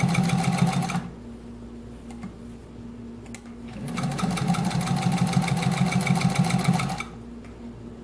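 1948 Singer 201-2 gear-driven sewing machine stitching through two layers of cowhide leather, 3/16 of an inch thick, with a rapid, even stitching rhythm. It runs for about a second and stops, gives a single click, then runs again for about three seconds and stops, passing the leather through without any problem.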